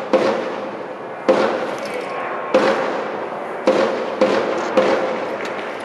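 Single strokes on a military drum, about six, each ringing out with a long echo: the first four a little over a second apart, then two more in quick succession.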